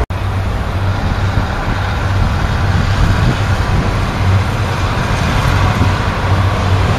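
A First Great Western diesel multiple unit passing on the railway, its underfloor diesel engine giving a steady low drone that swells and eases slightly.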